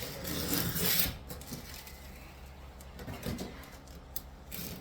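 Rough scraping and rubbing on a wall surface during demolition, loudest in the first second, followed by quieter scrapes, a few sharp knocks and another scrape near the end.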